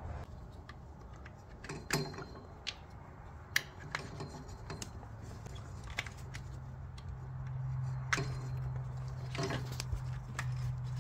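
Scattered plastic clicks and knocks as a distributor cap, its spark plug wires still attached, is worked off and handled. A low steady hum comes in about halfway through.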